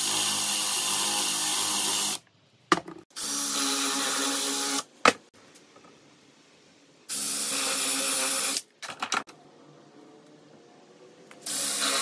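Power drill with a spade bit boring countersink holes into a wooden handrail, run in short bursts of one and a half to two seconds with pauses between. A few sharp knocks come in the pauses.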